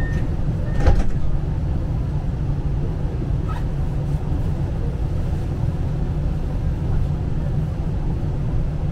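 Steady low rumble from inside a tram car. A short steady beep sounds at the start, and a single clunk about a second in is the loudest sound.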